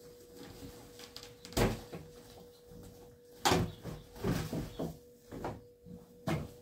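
A large plastic sack being handled: a run of sharp crinkles and knocks, about six of them a second or so apart, the loudest about halfway through, over a faint steady hum.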